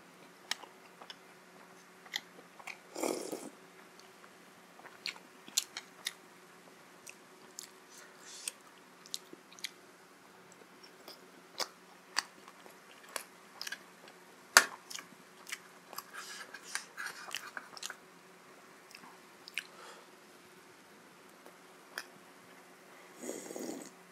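Close-miked eating: chewing with sharp wet mouth clicks and smacks scattered throughout. Two short slurps of jhol momo soup, one about 3 seconds in and one near the end.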